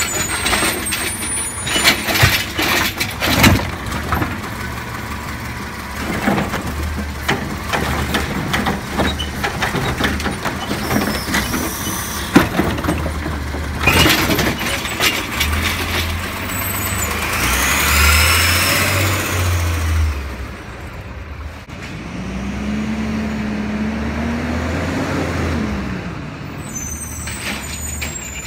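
Automated side-loader garbage truck collecting a curbside cart: repeated clanks and bangs of the hydraulic arm and cart, with the engine revving up for several seconds about halfway through. Later the engine note rises and falls as the truck moves off.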